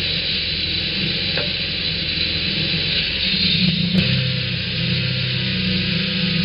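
Norwood portable bandsaw mill running under load: the steady drone of its engine with the hiss of the band blade cutting through a log. There is a single sharp click about four seconds in, where the engine note shifts slightly.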